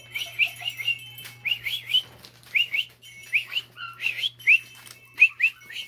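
Chickens peeping: many short, high, rising chirps, often two or three in quick succession.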